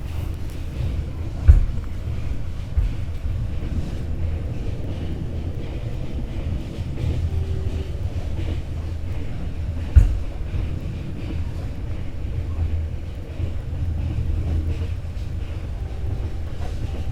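Sleeper train carriage running along the track, heard from inside the compartment: a steady low rumble with occasional sharp knocks from the running gear and car body, the loudest about ten seconds in.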